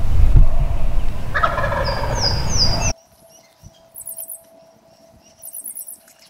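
Wild turkey gobbler gobbling once about a second and a half in, over a low rumble. After that it is much quieter, with two short, fast, high-pitched trills near the end.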